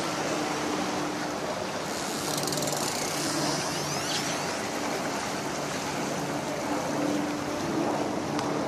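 Large motor yacht manoeuvring off a quay, its propellers churning the water: a steady wash of turbulent water with a low, even engine hum under it.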